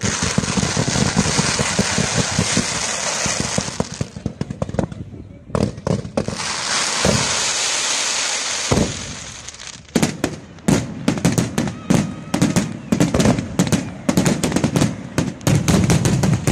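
Fireworks display firing low-level effects. A dense, crackling hiss runs for about four seconds, breaks off, then returns for a few seconds more. From about ten seconds in it gives way to a rapid string of sharp bangs, several a second.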